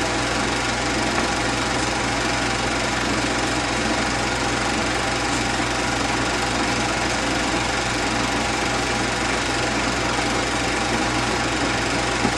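Allis-Chalmers WD-45 tractor's four-cylinder engine running steadily at an even speed.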